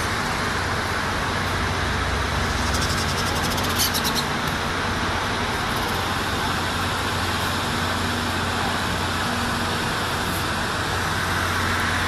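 Steady outdoor road-traffic noise with a low hum. About three to four seconds in there is a short run of fast, high clicks.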